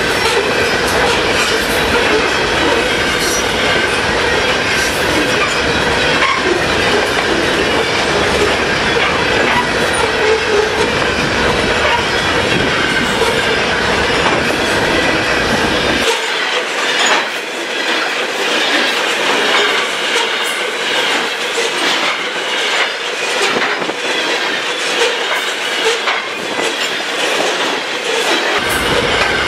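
Loaded covered hopper cars of a heavy freight train rolling past at track speed: a steady din of steel wheels on rail, with rhythmic clickety-clack over the rail joints and a steady wheel squeal. For a stretch in the second half the sound turns thinner, without the low rumble.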